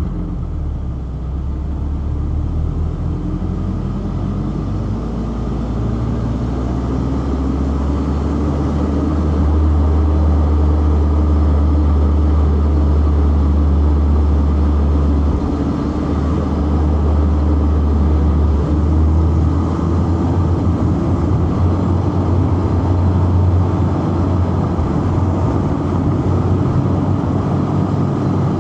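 Inline-four petrol car engine pulling hard, its revs climbing steadily over the first ten seconds and then holding high, with brief dips in pitch about fifteen and nineteen seconds in.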